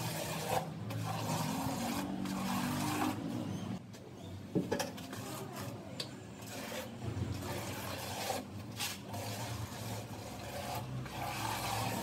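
Steel notched trowel scraping through wet tile-setting mortar on a concrete floor, combing it into ridges in repeated rasping sweeps with short pauses between strokes.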